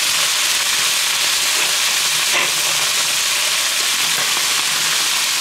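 Diced onions sizzling in hot olive oil in a wok: a steady, even frying hiss.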